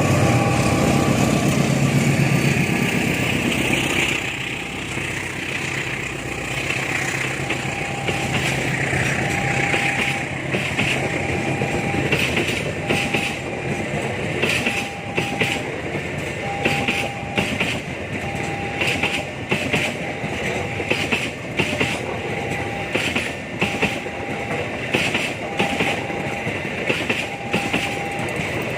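Train passing: a locomotive's engine loud in the first few seconds, then wheels clicking over rail joints in an uneven rhythm as the carriages go by. Throughout, a level-crossing alarm sounds a repeating tone about once a second.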